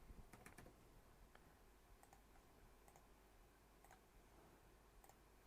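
Near silence with a few faint, scattered clicks from working a computer's mouse and keyboard.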